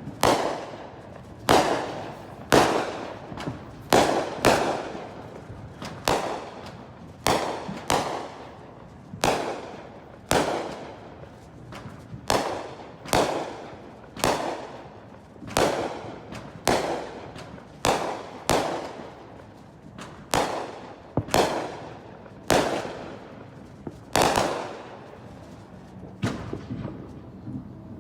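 Fireworks going off in a steady barrage: sharp bangs about one a second, sometimes two in quick succession, each trailing off in a rumbling echo.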